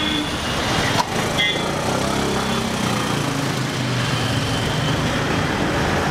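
Street traffic, with a motorcycle's small engine running as it passes close by, over a steady hiss of road noise. A single click about a second in.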